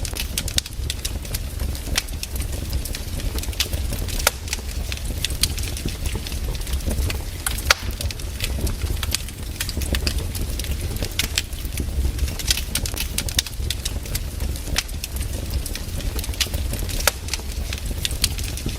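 Wood fire crackling, with frequent sharp irregular pops and snaps over a steady low rumble.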